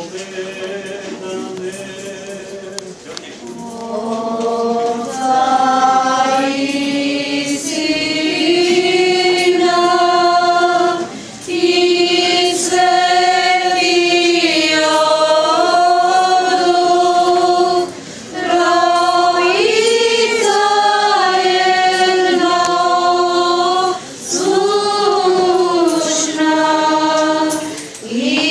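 Church choir singing an Orthodox liturgical chant in long held notes. It is softer for the first few seconds, then swells, with short breaths between phrases about every six seconds.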